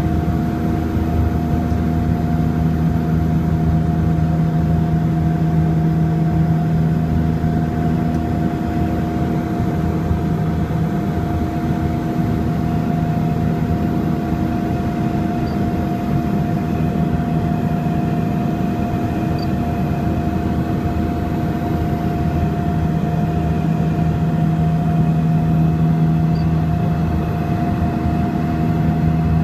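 Propeller aircraft's engine and propeller heard from inside the cabin, a loud steady drone with a low hum on top, during the approach to land. The lowest hum weakens for a while in the middle and comes back near the end.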